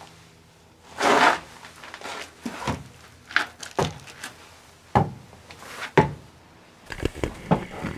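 A run of irregular knocks and thuds with scuffing, about eight in all. A longer scraping rustle comes about a second in, and several knocks come close together near the end.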